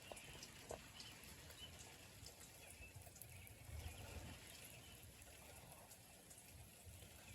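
Near silence: a faint steady hiss of light rain with a few soft drip ticks.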